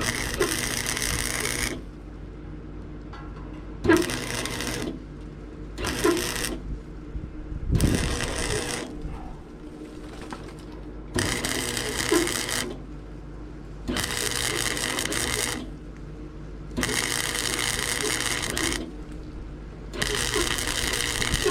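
Electric welder laying short beads in eight separate bursts of even arc crackle, each about one to two seconds long, while sealing a pipe into a steel box. A steady hum carries on between the bursts.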